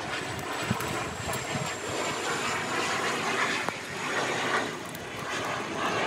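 Distant engine noise: a steady rushing rumble that swells and fades, with a faint high whine slowly dropping in pitch.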